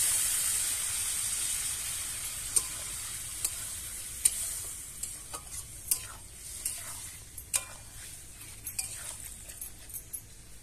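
Water poured into a hot wok of frying crab and spice paste sizzles loudly, the hiss slowly dying down over several seconds. A metal spatula stirs the pot, with scattered scrapes and clinks against the wok.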